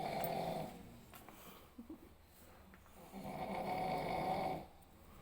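A person snoring loudly in deep sleep, with two long rattling snores. One ends about half a second in and the next runs from about three to four and a half seconds in.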